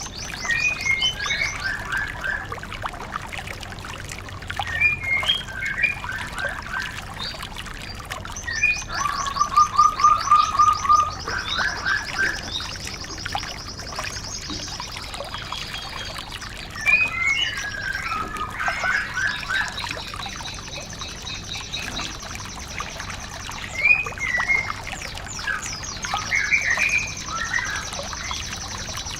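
Songbirds chirping and trilling: fast, high repeated-note trills and clusters of quick chirps. A lower, rapid trill comes about a third of the way in.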